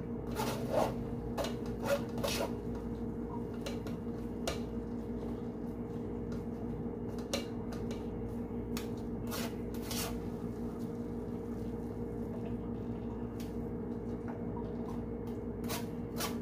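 Blended green vegetable pulp being pressed and rubbed by hand through a stainless steel mesh strainer to squeeze out the juice, with scattered short scrapes and taps against the mesh. A steady low hum runs underneath.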